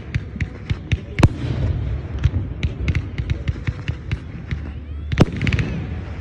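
Fireworks display: a rapid string of crackling pops from aerial shells, with two louder bangs, about a second in and about five seconds in.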